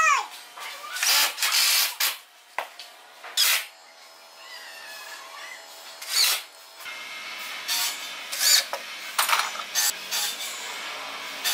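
Cordless drill-driver running in short bursts, driving screws into wood to fix metal drawer slides: one run of about a second near the start, then a handful of brief trigger blips.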